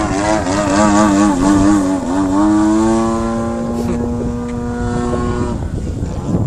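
Radio-controlled Extra 330S model aerobatic plane's motor and propeller droning in flight, its pitch wavering for about two seconds, then holding a steady, slightly rising tone before cutting off about five and a half seconds in. Wind buffets the microphone near the end.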